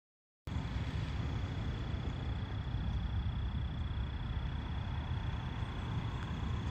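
Wind buffeting the microphone: a steady low rumble with a thin, steady high tone running through it. It cuts in suddenly about half a second in, after dead silence.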